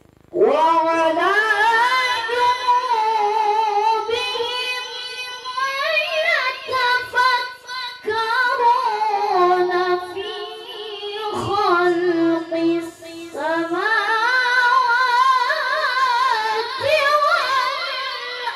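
A child qari reciting the Quran in a high-pitched voice, in long melodic phrases with a wavering, ornamented pitch and short breaks between them.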